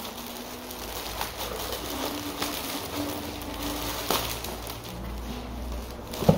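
A thin plastic bag rustling and crinkling in short scratchy bursts as a cap is worked out of it, with a single sharp knock just before the end.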